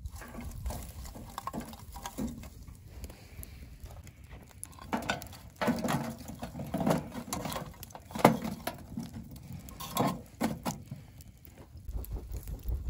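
A shovel scraping and tipping glowing wood embers onto the lid of a large metal tin, the coals clattering and crackling on the metal. There are irregular small ticks throughout, with louder knocks about halfway through and a couple more near eight and ten seconds in.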